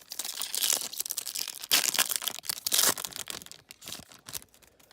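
A trading card pack wrapper being torn open and crinkled, a dense crackling rustle with louder tearing rips about two and three seconds in, dying away near the end.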